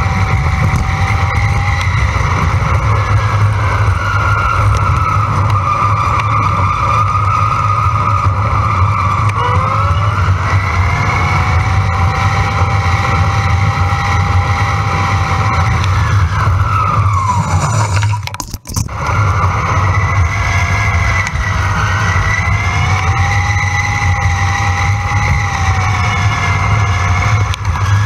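Wind buffeting the camera microphone on a moving Pedego electric bike, with the hub motor's whine rising and falling in pitch as speed changes; the audio is sped up fourfold. The sound drops out briefly about two-thirds of the way through.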